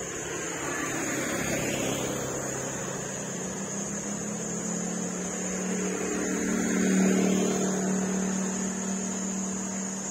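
Motorbike engine running as it comes along the road, a low hum that grows louder, is loudest about seven seconds in, then eases slightly.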